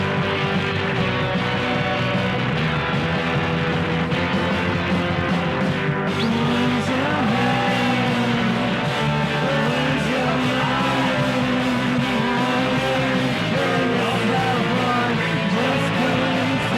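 Rock background music with guitar, with a sung or lead melody line coming in about halfway through.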